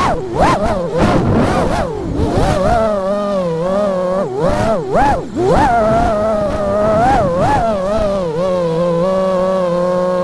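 FPV quadcopter's brushless motors and propellers whining, the pitch swooping up and down sharply again and again with throttle changes, then holding a steadier hum for the last couple of seconds.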